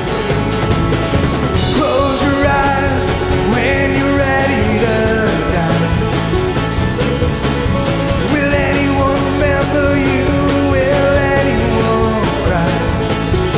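Live band playing bluegrass-flavoured country rock: strummed acoustic guitar, mandolin, electric bass and drums. A male lead vocal comes in about two seconds in and carries on over the band.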